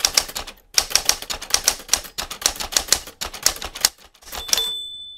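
Typewriter keystrokes as a sound effect, a fast run of sharp clacks at about seven a second with two short pauses, and a brief bright ring near the end.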